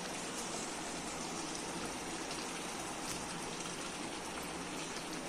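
Masala gravy boiling in a steel pot on a gas stove: a steady, even hiss.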